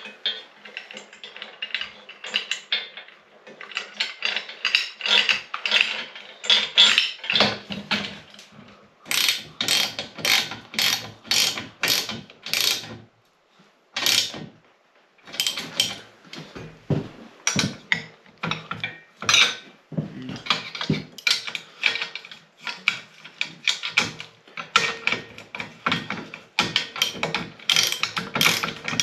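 Socket ratchet wrench clicking in quick back-and-forth strokes as it tightens the bolts that mount a hand-crank winch to a steel tube frame, with a short pause about halfway through.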